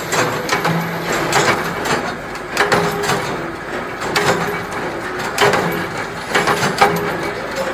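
Production-line machinery running, with irregular metallic clanks and clicks several times a second over a steady low hum.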